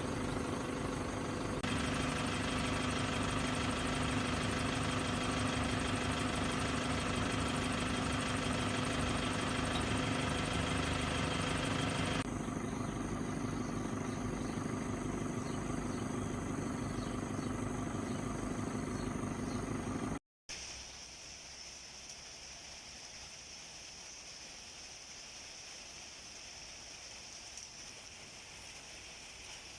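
An engine running steadily for about twenty seconds, its sound changing abruptly twice. After a brief dropout, a quieter steady background with a high hiss.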